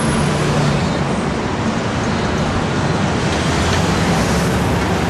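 Steady road traffic noise: a continuous rush of passing vehicles with a low engine hum underneath.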